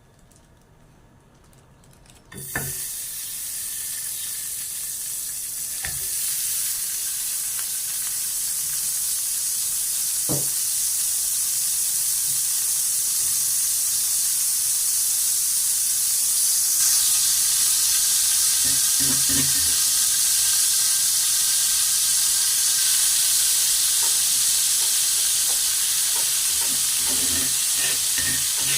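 Food dropped into hot oil in a pan, starting to sizzle suddenly about two seconds in and frying steadily after that. A few light knocks from a utensil against the pan come in as it is stirred, mostly in the second half.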